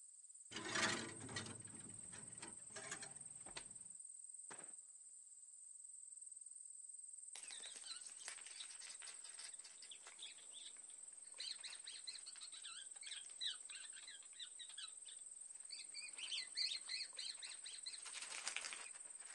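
Faint rustling and a few knocks in the first few seconds, then many faint high chirps over a steady high-pitched whine.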